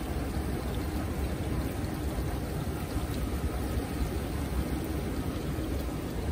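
Steady rushing noise of wind buffeting the microphone over the flowing water of an outdoor hot-spring pool, with a low rumble and no distinct events.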